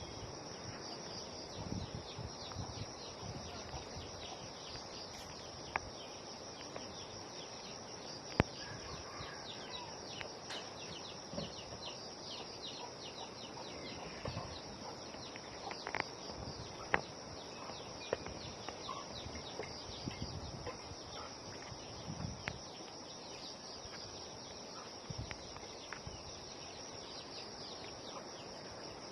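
Steady outdoor insect chorus, a continuous high pulsing buzz, with a few scattered sharp clicks, the loudest about eight and a half seconds in.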